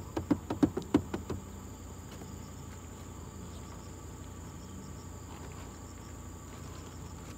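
Insects chirring in a steady high drone, with a quick run of about nine sharp taps or knocks in the first second and a half.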